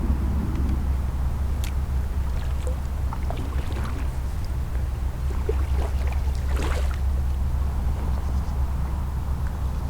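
Kayak being worked through a creek past a fallen tree: scattered light knocks and scrapes, with a louder rustling scrape about six and a half seconds in, over a steady low rumble.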